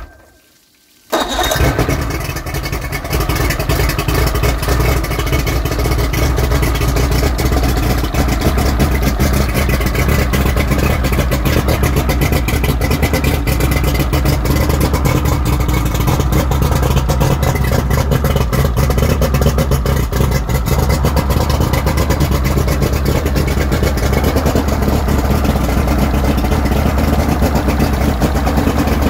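2001 Mercury 225 EFI two-stroke V6 outboard, cowling off, firing up about a second in and then running steadily.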